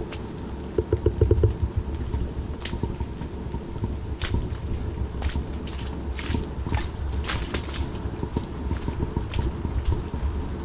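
Footsteps walking along a wet, muddy woodland track: a steady low rumble of steps, with scattered sharp ticks throughout and a short quick run of strokes about a second in.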